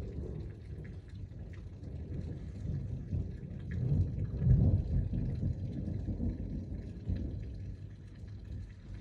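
Thunder rumbling, swelling to its loudest about halfway through and dying away near the end, over the patter of rain.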